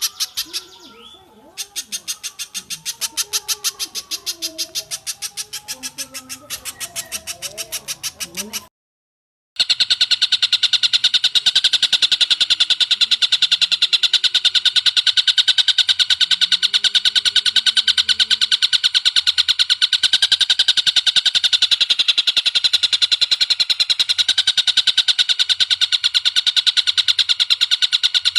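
Bird-tutor recording of pijantung (spiderhunter) and tengkek buto calls: a rapid, evenly repeated run of high notes with softer, lower bird calls underneath. It cuts out to silence for about a second, then a dense, unbroken fast trill takes over for the rest.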